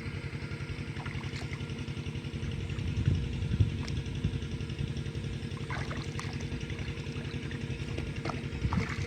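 Small engine running steadily with an even, rapid pulse, a little louder about three seconds in.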